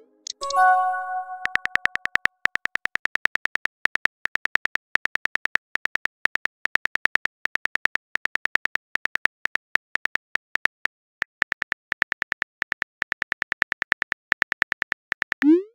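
Simulated phone-keyboard typing clicks, rapid and even, as a text message is typed out. About half a second in there is a short chime as a message is sent, and near the end a rising swoosh.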